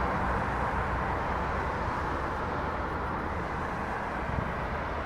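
Steady vehicle noise: an even roar with a low engine hum beneath it, easing off slightly.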